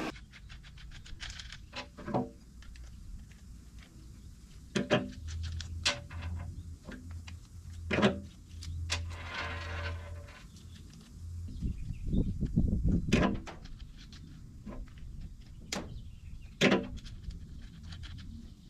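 Scattered clicks, taps and clanks of small metal parts being handled while the plasma cutter torch's consumable tip is swapped out, over a low hum that comes and goes, with a brief low rumble about twelve seconds in.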